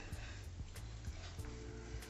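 Background music with a steady beat of light ticks about three times a second, and a held chord coming in about halfway through.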